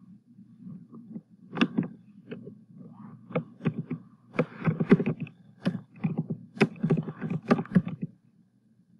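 Typing on a computer keyboard: a run of short key clicks, a few at first and quicker and denser from about four seconds in, stopping near the end, over a low steady hum.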